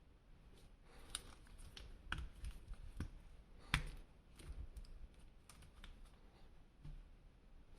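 Irregular small clicks and taps of plastic being handled, as an action figure and its packaging are unboxed, with one sharper click a little under four seconds in.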